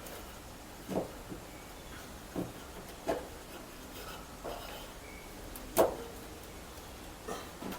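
Scattered short knocks and clicks, about six of them, with the sharpest a little before the end: hand work with small parts and tools.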